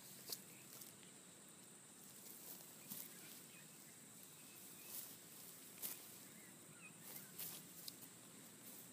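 Near silence: faint steady outdoor hiss, broken by a few soft clicks and rustles as a person moves through stretches on grass.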